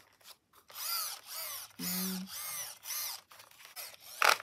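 The gearing in a Loona robot pet's right leg being turned by hand with the power off, giving a run of about five short whirring, grinding strokes, each rising and falling in pitch, with a sharp click near the end. The noise comes in only one direction of turning and the drive slips under torque, which the owners take for one gear riding over another, something come loose inside.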